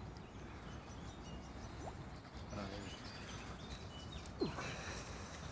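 Quiet outdoor ambience with faint, scattered bird chirps. A short burst of noise comes about four and a half seconds in.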